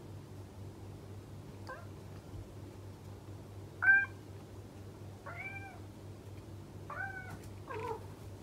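Long-haired Scottish Fold cat meowing while left alone, lonely cries for its absent owner: five short meows, the first faint, the loudest about four seconds in, the last two close together near the end.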